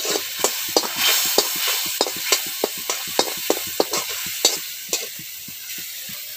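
Long metal spatula scraping and knocking against a metal kadai, about three strokes a second, while masala paste sizzles in the hot oil. The stirring stops about five seconds in, leaving the sizzle alone.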